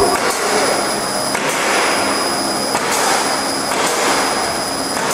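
CO2 laser marking machine running while it engraves wood: a steady rushing noise with a constant thin high whine over it.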